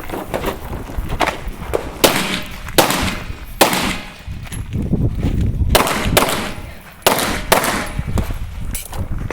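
Smith & Wesson M&P 9 9mm pistol fired in a string of sharp shots, singles and quick pairs, with a pause of about two seconds in the middle.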